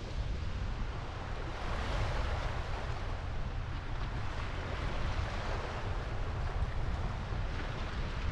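Surf washing on the beach, swelling about two seconds in and again later, under strong wind buffeting the microphone in a constant low rumble.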